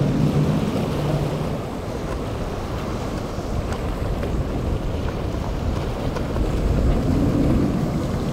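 Boat engines running over wind buffeting the microphone and waves breaking. A steady engine drone fades out within the first second or two, leaving the rush of wind and surf. Near the end a second engine note swells as a SeaVee center console's triple Mercury Racing 300 outboards come through the waves.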